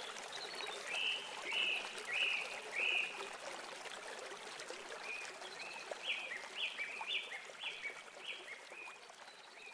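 Pond ambience: water trickling steadily under a bird calling in short repeated notes, four spaced calls near the start and a quicker run of about eight from about halfway through.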